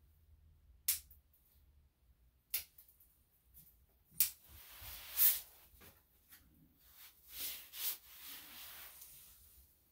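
A few short, sharp snips of scissors trimming a puppy's coat, with soft rustling of fur and handling in between.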